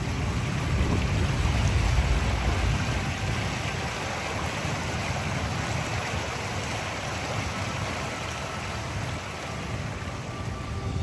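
Rushing river water with wind buffeting the microphone, the wind strongest in the first few seconds.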